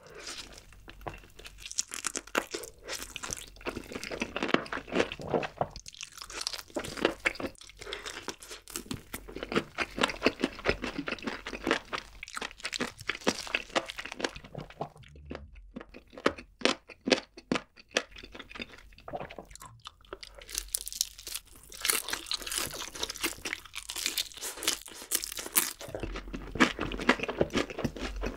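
Close-miked crunching and chewing of crispy fried chicken: dense crackles of the fried crust breaking between the teeth, with a short lull about halfway through.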